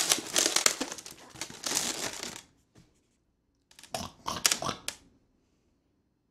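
Latex modelling balloons rubbing against each other and against the hands as the pig's back legs are twisted, for about two and a half seconds, with a shorter burst of the same handling a little before four seconds in.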